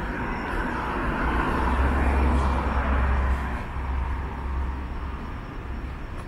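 A car driving past: its tyre and engine noise swells to a peak about two seconds in, then fades away, over a steady low rumble.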